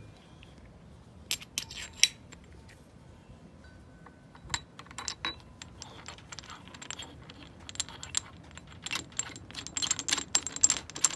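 Sharp metal clicks and clinks from a black tube and metal coupling on an airsoft launcher as they are gripped and worked by hand. Three loud clicks come a little over a second in, a few more around the middle, and a quick run of ticking near the end.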